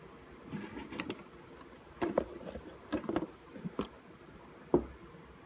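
Scattered light knocks and clicks of tools and small parts being handled at a workbench during soldering, with one sharper knock near the end.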